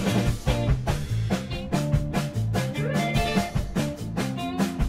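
Upbeat instrumental background music with a steady drum beat.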